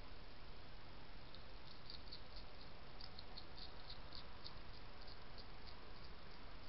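European hedgehog crunching dry kitten kibble from a bowl: a quick, irregular string of small crisp crunches, thickest in the middle, over a steady hiss.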